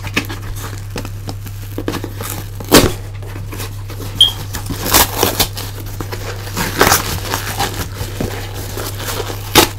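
Cardboard box being pulled and torn open by hand: irregular crinkling and rustling broken by sharp cracks and knocks, the loudest about three seconds in and just before the end.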